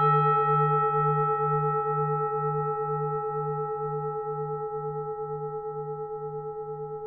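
Temple bell ringing out after a single strike, its tone slowly fading. The low hum wavers about three times a second under clearer higher overtones.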